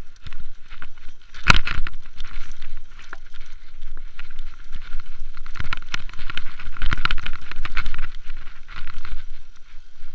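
Mountain bike rattling and clattering over rough, rocky grass on a descent, an irregular run of knocks and jolts, with the rush of riding wind on the microphone underneath.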